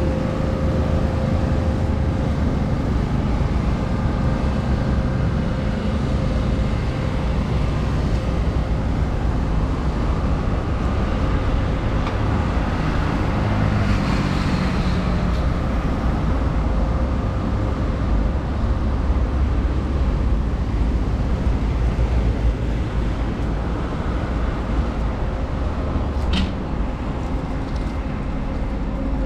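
Steady road traffic noise, strongest in the low range, with a constant hum through it; a brief high-pitched chirp comes near the end.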